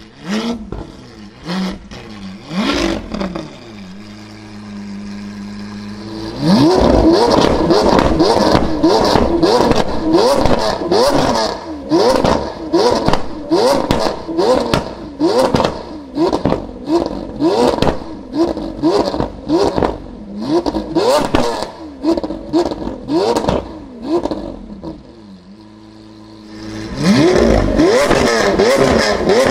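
Lamborghini Aventador's 6.5-litre V12 through a Capristo cat-less straight-pipe exhaust, revved while standing. A few blips and a short idle give way to a long run of quick throttle blips, about one a second, each rising sharply in pitch and followed by sharp cracks. It settles back to idle briefly, then revs again near the end.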